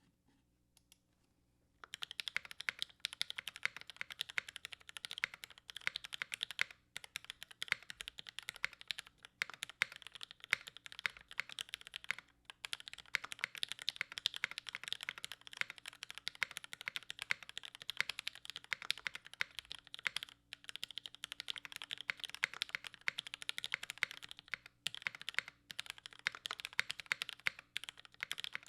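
Continuous fast typing on a Noxary Vulcan Pro mechanical keyboard: Tealios linear switches with Cherry housing tops on an aluminum plate, dual-gasket mounted, under GMK keycaps, giving a dense stream of key strokes. The typing starts about two seconds in and pauses only briefly a few times.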